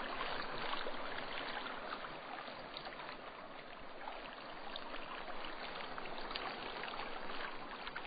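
Steady rush of a flowing stream, an even wash of running water with no breaks.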